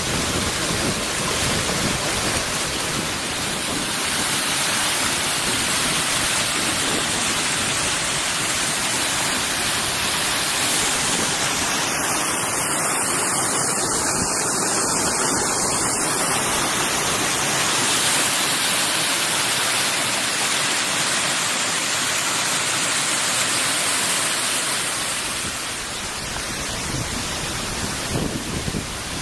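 A stream tumbling over rocks, a steady rush of white water that eases slightly near the end.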